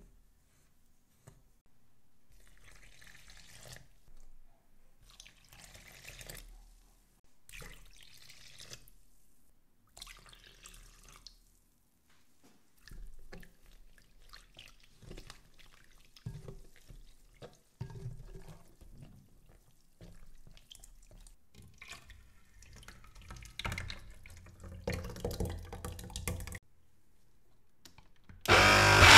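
Water poured into a glass bowl of semolina and flour in several separate pours, then a silicone whisk stirring the thick, wet batter. Near the end a countertop blender switches on loudly.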